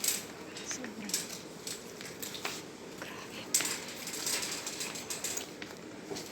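Quiet shop background with scattered faint clicks and knocks, with one short spoken word near the start.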